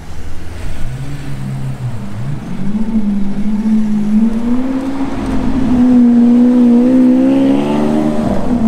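Lamborghini Aventador's V12 engine driving past: its note climbs, dips briefly about two seconds in, then holds steady and grows louder, falling sharply in pitch just before the end.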